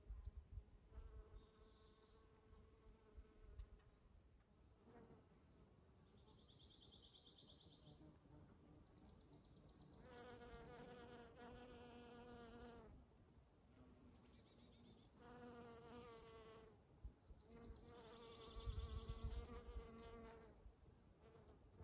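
Honey bees buzzing as they fly close by, the faint drone swelling and fading several times as individual bees pass. A few brief, high bird chirps sound in between, and a low rumble comes near the end.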